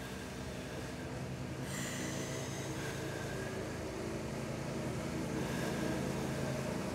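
Slow, deep breaths, about two long breaths several seconds apart, from people sitting in an ice bath, over a steady low mechanical hum.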